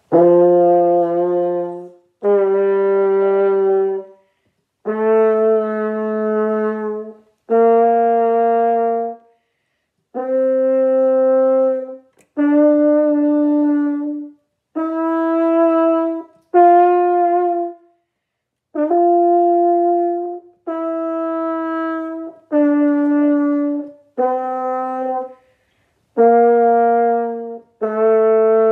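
French horn playing a C major scale one octave up and back down. Each note is held for one to two seconds, with a short break between notes.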